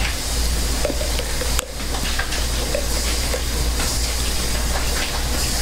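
A steady, even hiss with a low hum beneath it, dipping briefly about a second and a half in.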